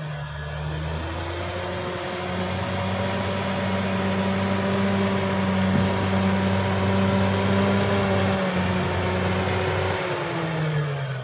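CAT D6R XL bulldozer's diesel engine working: it revs up about a second in, holds at high revs and falls back near the end.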